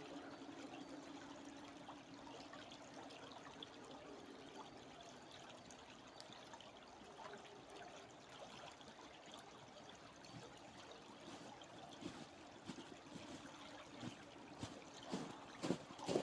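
A stream trickling and running, faint and steady. Footsteps begin near the end, a few sharp crunches getting louder.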